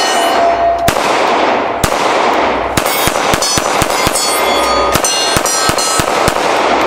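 Glock 45 9mm pistol fired in a steady string of shots, about one a second, each crack trailing off in a long echo. Steel targets ring with clear tones when hit.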